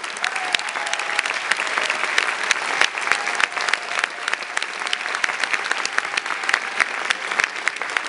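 Large theatre audience applauding steadily, a dense wash of clapping with individual claps close by standing out sharply.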